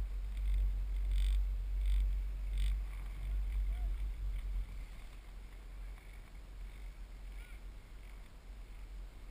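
Wind buffeting the microphone on a moving chairlift, a low rumble that eases after about four and a half seconds. Over the first few seconds there is a short run of evenly spaced clacks as the chair's grip rolls over the lift tower's sheaves.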